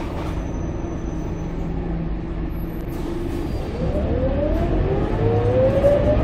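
Scania K230UB bus engine and drivetrain heard from inside the passenger cabin: a steady low rumble, then from about four seconds in a whine that climbs in pitch several times over as the bus accelerates and gets louder.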